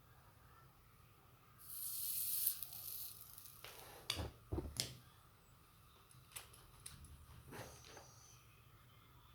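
Soldering iron melting solder and flux on a joint, a short sizzling hiss lasting about a second and a half. After it come several small clicks and knocks of tools being handled.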